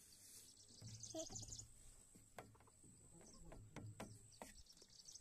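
Near silence, with faint high bird chirps near the start and end and a few soft clicks in the middle.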